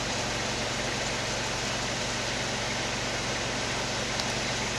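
A car's engine and tyre noise heard from inside the cabin while driving slowly on a rough dirt road: a steady low hum under an even hiss.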